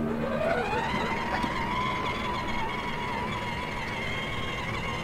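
Electric motor of a battery-powered ride-on toy Lamborghini Aventador whining as the car backs up across dirt under remote control: the pitch rises over about the first second as it speeds up, then holds steady.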